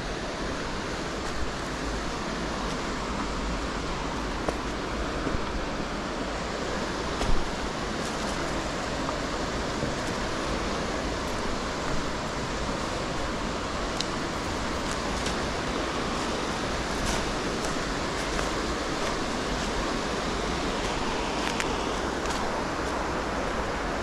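Waterfall rushing steadily, an even wash of water noise, with a few small clicks and one louder knock about seven seconds in.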